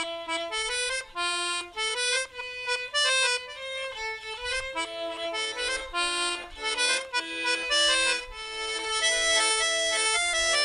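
Background music: a melody of short held notes over chords, changing pitch several times a second.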